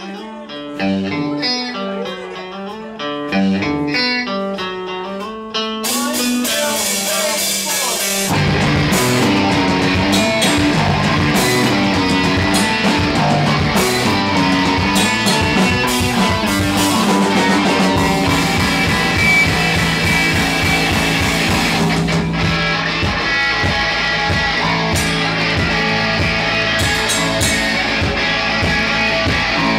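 Live rock band starting a song. An electric guitar picks a riff alone, then the drums and the rest of the band come in about six to eight seconds in and play on together.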